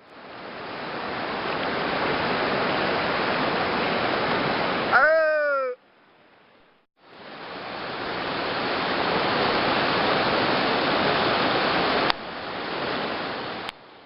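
A waterfall rushing steadily. About five seconds in, a short shout falls in pitch. The rush breaks off for about a second and comes back, and there is a sharp click near twelve seconds.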